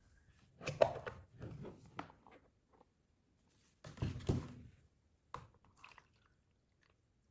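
Handling noises: a cluster of short taps and rustles, a longer rustle about four seconds in, and a sharp click later.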